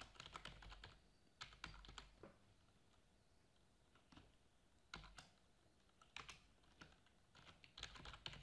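Faint computer keyboard typing in short bursts of keystrokes, with a pause of about two seconds near the middle.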